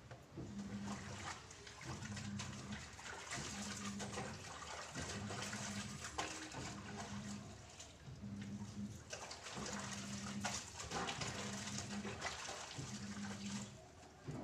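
Laundry being scrubbed by hand in a basin of water: rhythmic wet rubbing and sloshing, about one stroke a second.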